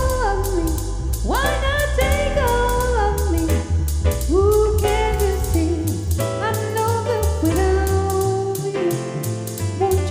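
A song with a sung melody of long held notes that slide between pitches, over a steady drum beat and a heavy bass line.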